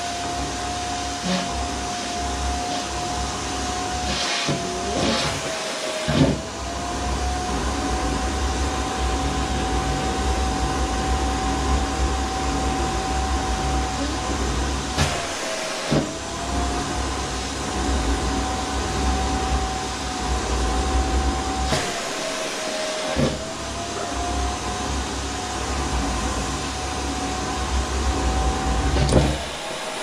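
Electrolux vacuum cleaner running, with a steady motor whine and air rushing through the hose. The whine sags briefly in pitch about four times, each time with a short knock.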